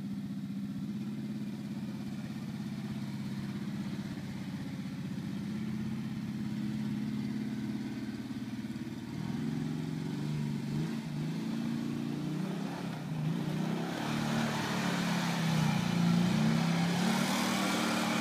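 ATV engine running at a steady pitch, then revving up and down repeatedly from about halfway as the quad is drifted on ice, growing louder toward the end. A hiss joins near the end.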